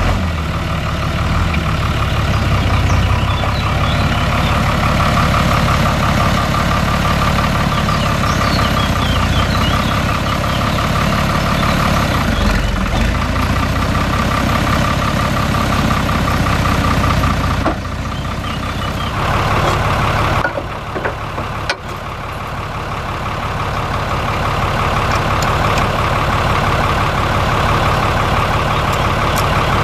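Fiatagri 110-90 DT tractor's six-cylinder diesel engine running steadily at low revs while the tractor moves slowly back to a trailer's drawbar. A few short knocks come in the second half.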